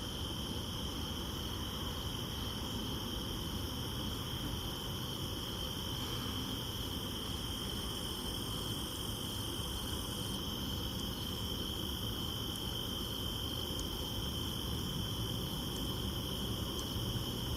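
Steady night chorus of crickets, one continuous high trill that never breaks, over a low, even background rumble.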